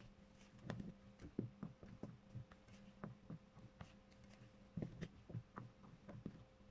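Silicone spatula folding thick batter in a glass bowl: faint, irregular soft knocks and scrapes against the glass, a few every second, over a steady faint hum.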